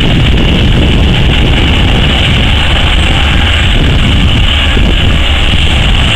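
O&K RH120-C hydraulic face shovel's diesel power and hydraulics running loud and steady as the bucket digs into the spoil and lifts a full load.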